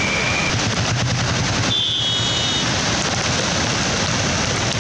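Floodwater released through the Panshet dam gates rushing down the river channel: a dense, steady rush of turbulent white water, with a patch of rapid crackling about a second in.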